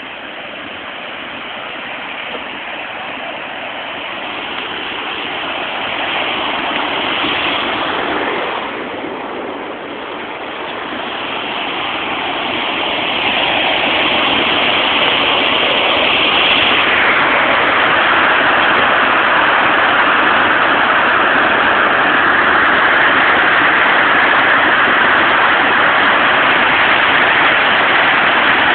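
Water pouring over a river dam spillway: a steady rushing noise that swells over the first half, dips briefly about nine seconds in, then holds loud from about thirteen seconds in.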